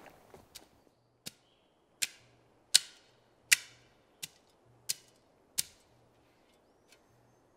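Metal shovel blade striking into the ground while digging a hole: seven sharp strikes at an even pace, about one every three quarters of a second, each with a short ringing tail, then a faint eighth near the end.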